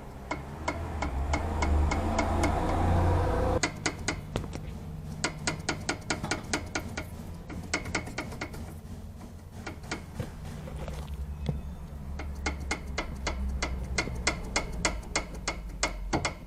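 Worn front stabilizer link (bieleta) on a VW Voyage G5 clacking rapidly in its loose ball joint as it is levered back and forth, several sharp clicks a second. This play is the cause of the 'tuf tuf tuf' front suspension knock over cobblestones, a known fault of the G5 line.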